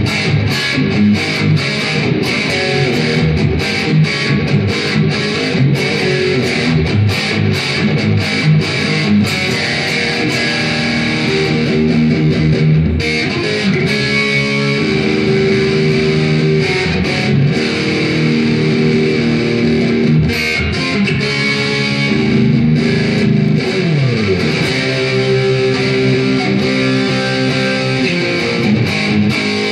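Electric guitar, a replica Kramer 5150 with a Seymour Duncan JB pickup, played through a Marshall Valvestate VS265 amp with reverb. Fast picked lead lines give way, about halfway through, to held chords and ringing notes, with one note sliding down in pitch a little after the middle.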